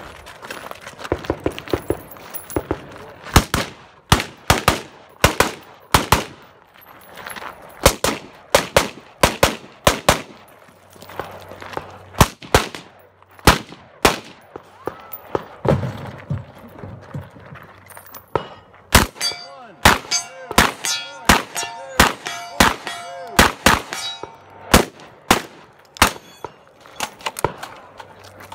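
Strings of gunshots from a 3-gun competitor's firearm, many in quick pairs, with steel targets ringing from hits through a stretch in the second half.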